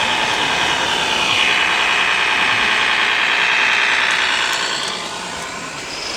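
Radio-controlled scale model truck running: a steady high whine with an engine-like drone, easing off for a moment about five seconds in.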